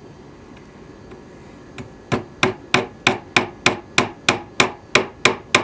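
Small hammer tapping a brad down through a model railroad ground throw into cork roadbed: after a quiet start, a steady run of light, sharp taps, about three a second.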